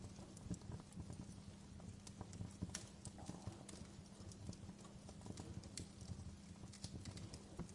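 Wood fire crackling in a stone fireplace: quiet, irregular sharp pops and snaps over a low rumble of flames, with a faint steady low hum underneath.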